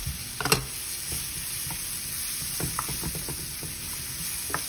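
Sliced vegetables sizzling in hot oil in a frying pan, stirred with a cooking spoon that knocks lightly against the pan a few times.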